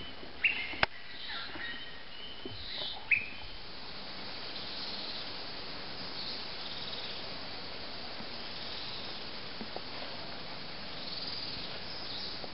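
Birds calling in tropical forest: a few loud, sharp whistled notes in the first three seconds, then softer high calls repeating every second or two over a steady hiss of insects.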